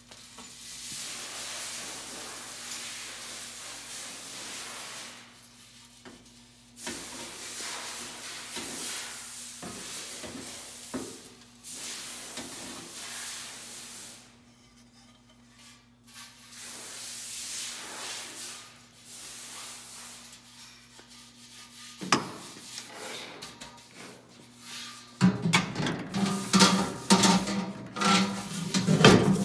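Grain sample rustling and rattling as it is shaken out of a Carter Day sizer's slotted screen drum into a metal tray, in several pours with short pauses, over a steady low hum. Near the end it gets much louder, with clattering as the material is stirred by hand in the tray.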